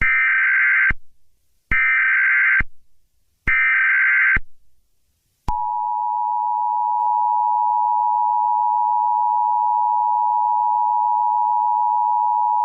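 Emergency Alert System alert opening: three short bursts of SAME header data tones, about a second each, then the steady two-tone EAS attention signal (853 and 960 Hz) coming in about halfway through and holding.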